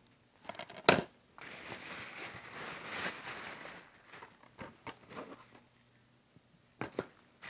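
Shrink-wrapped plastic DVD cases being handled and set down on a stack. There is a sharp clack about a second in, then a few seconds of crinkling and rustling, and another click near the end.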